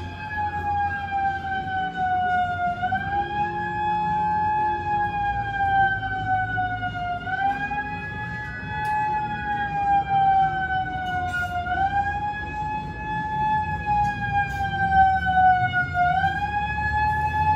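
Curfew siren wailing: a single tone that rises quickly, then sinks slowly, over and over, about once every four and a half seconds.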